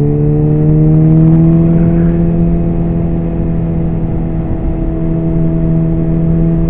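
Suzuki B-King's inline-four engine pulling steadily in gear, its pitch rising a little over the first second or so and then holding even.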